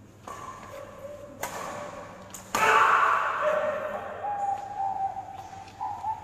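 Badminton rally: rackets striking a shuttlecock with several sharp smacks, the loudest about two and a half seconds in, echoing in the hall.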